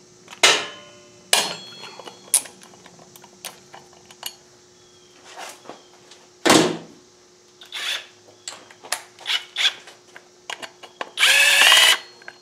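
Metal tools clink and clank against a motorcycle wheel and its brake disc, some knocks ringing briefly. Near the end a cordless brushless impact wrench runs for about a second on a rear brake disc mounting bolt, loosening it.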